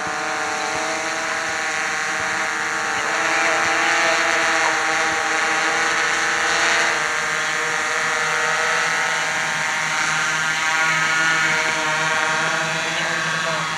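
Quadcopter with four RCX 2214 950 KV brushless motors spinning DJI 10 x 3.8 propellers, flying: a steady whine of several pitches at once, drifting a little in pitch as the motor speeds change, loudest around the middle.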